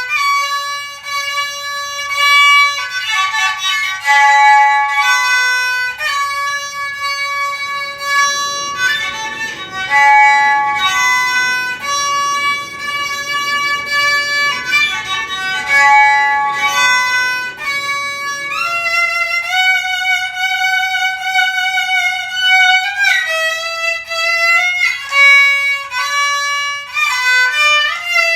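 Kokyu, the Japanese bowed fiddle, playing a slow solo melody of held notes, sliding into some of them, with vibrato on a long note about two-thirds of the way through.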